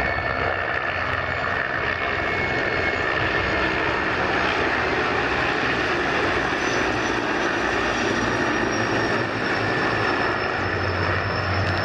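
Three military helicopters flying past in formation: a steady rush of turbine engines and rotors. A thin high whine comes in about halfway through and slowly falls in pitch.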